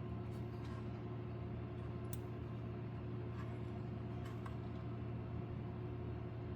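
Steady low hum of a running air conditioner, with a few faint ticks scattered through it.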